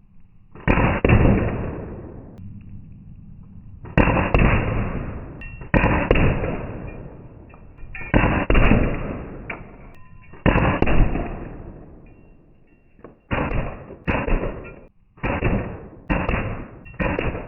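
Byrna MLR CO2-powered less-lethal launcher firing rapid full-auto bursts, about eleven strings of quick pops. The later bursts are shorter and come closer together.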